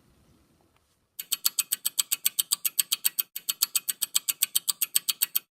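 Rapid, even mechanical clicking, about eight or nine clicks a second, with one short break about halfway; it stops abruptly near the end.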